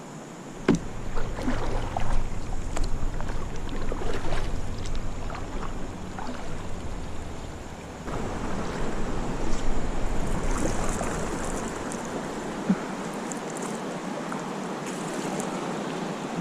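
Water moving around a canoe on a river, with scattered light knocks and splashes, and a low wind rumble on the microphone for most of the time, dying away near the end.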